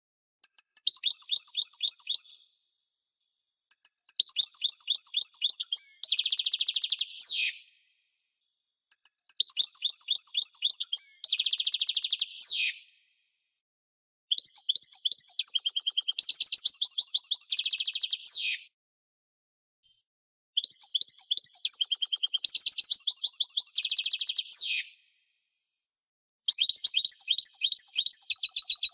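European goldfinch singing: six rapid twittering song phrases of about two to four seconds each, separated by short pauses. Each phrase ends in a dense buzzy stretch and a quick falling note.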